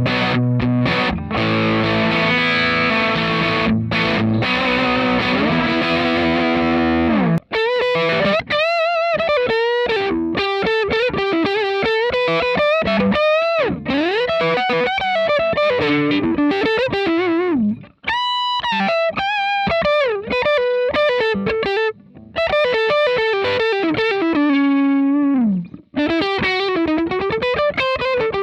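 Electric guitar played through a Cort x Moollon CMV15 amp with a distorted tone. It opens with about seven seconds of full chords, then moves to a single-note lead with bends and vibrato, including a long held note past the middle and a slide down near the end.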